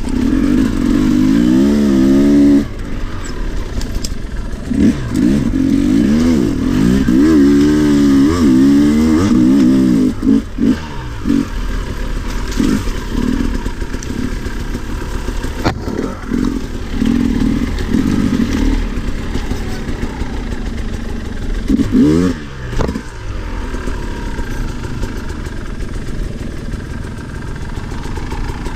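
Two-stroke enduro motorcycle engine, the 2022 Sherco 300 SE Factory, being ridden on a trail: the revs rise and fall over and over as the throttle is opened and closed, with easier off-throttle stretches.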